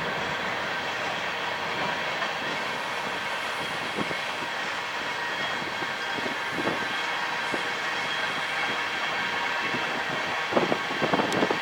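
Cars of a freight train rolling past, a steady rumble of steel wheels on rail, with a quick cluster of clacks from the wheels near the end.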